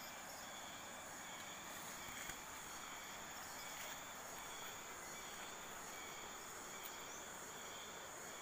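Faint, steady chorus of insects: one high continuous tone with a lower layer that comes and goes, over a soft outdoor hiss.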